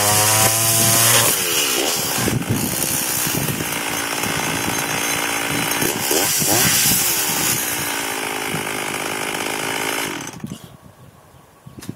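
Chainsaw running at high revs, then cutting into wood, its engine note dipping and recovering under load. It cuts out or drops away about ten seconds in.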